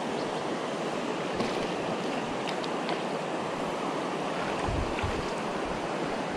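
Steady rush of river water around an action camera held at or just under the surface, with a few faint ticks and low bumps from the camera moving in the water.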